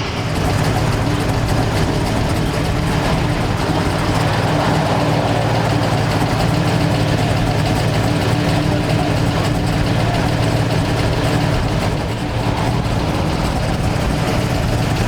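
Big-block V8 muscle car idling steadily.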